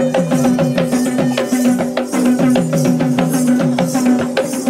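Traditional Kandyan procession drumming: fast, rhythmic drum strokes with rattling jingles, over a steady held tone.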